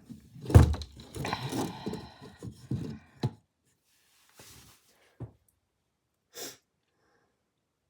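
Parts of a small display easel being handled and fitted together: a heavy thunk about half a second in, a few seconds of knocking and clattering, then two short knocks.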